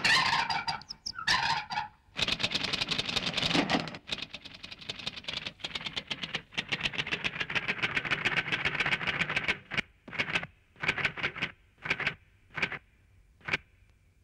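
Mechanical sound effects on an animated film's soundtrack: a fast clicking rattle that runs for several seconds with a thin steady whine under it, then breaks into a string of short separate bursts.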